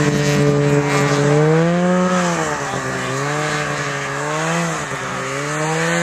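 Snowmobile engine revving up and down three times as the sled climbs a snowy hill, slowly growing fainter.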